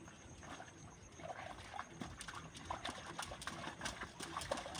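Water hyacinth leaves and stems rustling and crackling as hands push through and part them, a run of irregular short clicks and snaps.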